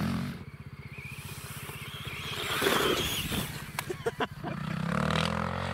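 Electric motor of a Feiyue FY-11 radio-controlled 4x4 truck running as it drives through grass, under a steady low rumble. A few sharp clicks come a little under four seconds in, and there is a rising tone near the end.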